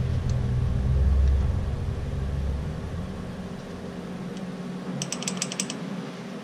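A ratchet wrench clicking quickly, about six or seven clicks in under a second near the end, as a rocker-arm adjusting nut on a Ford 289 V8 is worked while setting valve lash. A low rumble runs under the first half and fades out.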